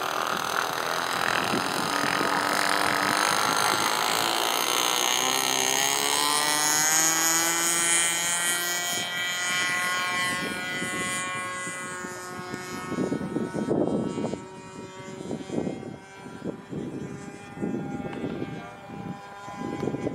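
Radio-controlled model airplane's engine running hard, its pitch rising as the plane takes off and climbs away, then holding steady and fading as it flies off into the distance.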